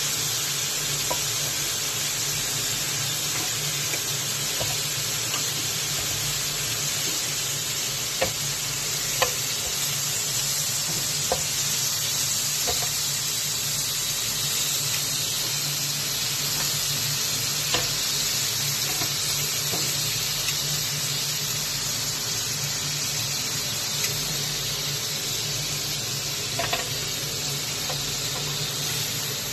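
Thin slices of meat sizzling steadily on the ridged plate of an electric grill, with a few short light clicks scattered through.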